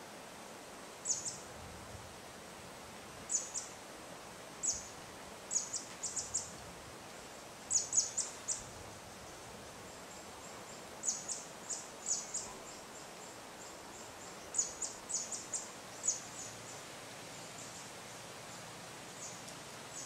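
Mountainside nature ambience: a steady hiss of insects and light wind, broken by clusters of short, high chirps every few seconds, which grow fainter near the end.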